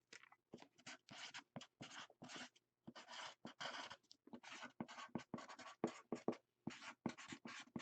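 Hand-writing on a box: a quick, irregular run of short scratchy pen strokes as letters are written out.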